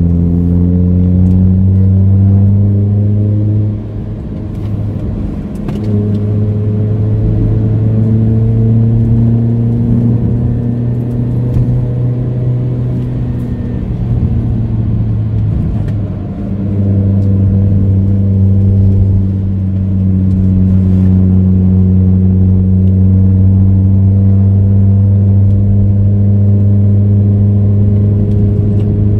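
Proton Inspira 1.8's four-cylinder engine heard from inside the cabin, pulling steadily uphill at around 2,500–3,500 rpm. The note dips briefly twice, about four and sixteen seconds in, as the throttle is eased.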